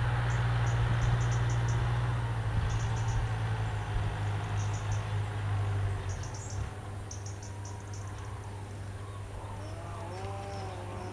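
Migrating common cranes calling in the distance: a few rising and falling trumpeting calls near the end, over a steady low hum that fades about halfway through and short bursts of high insect-like chirping.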